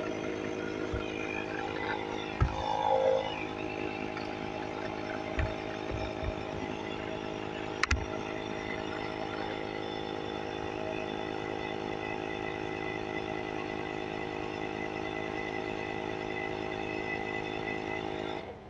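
Portable electric air compressor (tire inflator) running steadily while pumping up a tire, with a few light knocks, then shutting off abruptly near the end.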